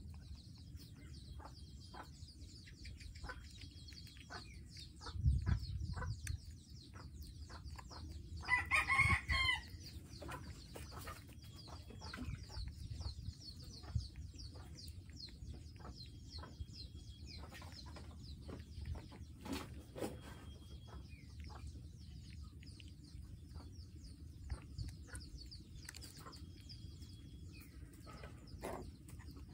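A rooster crows once, about nine seconds in, a single call of about a second. Around it are faint high chirping and scattered light clicks and taps, with a short low rumble a few seconds before the crow.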